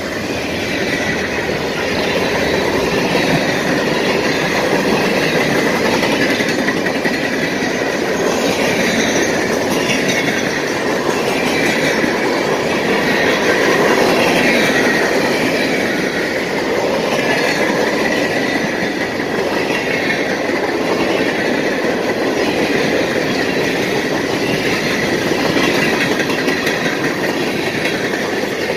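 CSX mixed freight train cars rolling past at close range: a loud, steady rumble of steel wheels on the rails.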